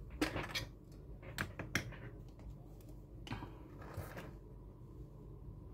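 Handling noise on a worktable: a few short clicks and rustles as small objects are picked up and moved, over a steady low hum.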